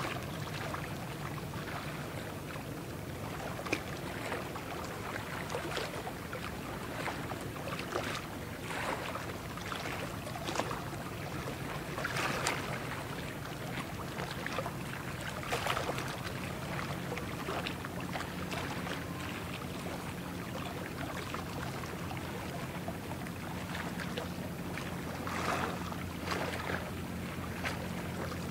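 A container ship passing close by: a steady low engine drone under the rushing and splashing of its bow wave.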